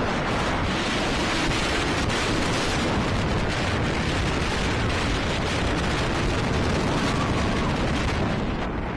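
Wind rushing over the microphone and the roar of a roller coaster train running at speed on its track, a loud steady rush that eases off slightly near the end as the train climbs a hill.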